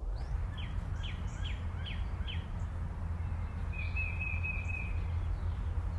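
Birds singing over a steady low outdoor rumble: a run of five quick, falling chirps in the first couple of seconds, then one held high note about four seconds in.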